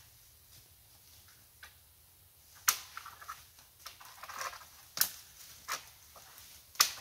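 Dry dead wood cracking: four sharp snaps as branches are broken, the last the loudest, with leaves and twigs crackling between them.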